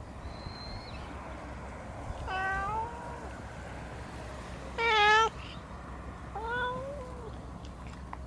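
Cat meowing three times, about two seconds apart; the middle meow is the shortest and loudest.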